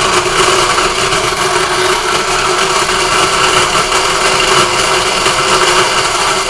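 Mini food processor running on high, chopping pieces of lime: a steady, loud motor whir.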